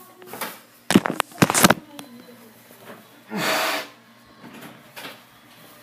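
Handling noise from a phone camera being moved about: a quick cluster of bumps and knocks, then a short breathy rush of about half a second.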